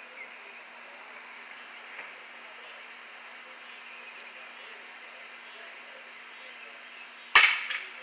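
Steady high chirring of insects, then about seven seconds in a single sharp BB gun shot with a short ringing tail.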